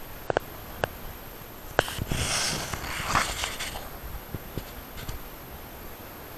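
Handling noise close to the microphone of a handheld camera: a few sharp clicks, then about two seconds of rustling hiss.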